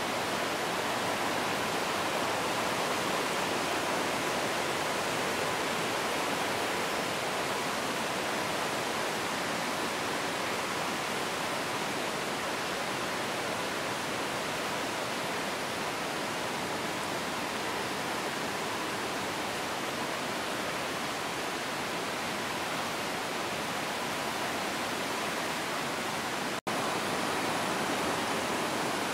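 A swollen, muddy river in flood, rushing and churning over rocky rapids in a steady, even rush of water. The sound breaks off for an instant near the end, then carries on.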